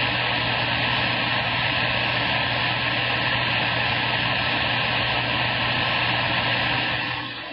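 CB radio static: a steady hiss from the radio's speaker with a low hum under it, easing off near the end.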